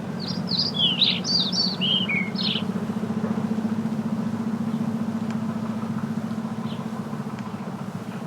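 A bird chirps a quick run of high, rapid notes for the first two and a half seconds, then gives one faint chirp later on. A steady low hum, like a distant engine, runs underneath.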